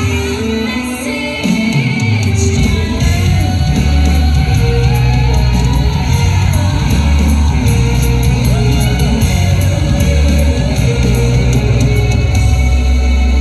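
Recorded music with a singing voice, the accompaniment for a stage dance piece. A heavy bass line comes in about two seconds in.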